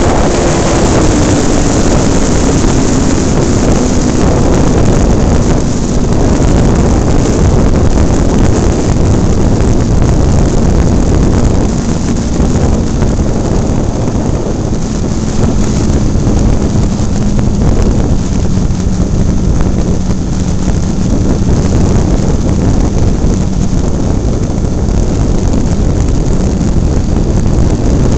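Wind rushing over a microphone on board an RC model airplane in flight, over the steady hum of the plane's motor. The motor's pitch falls gradually over most of the flight and climbs again at the end.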